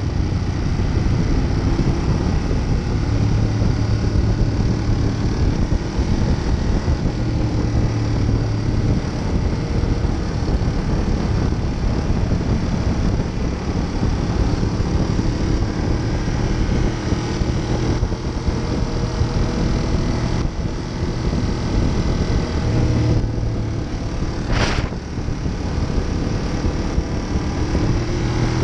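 Ducati Monster 821's L-twin engine running at road speed, its pitch slowly rising and falling with the throttle through the bends, under a heavy rush of wind on the microphone. A brief whoosh comes near the end.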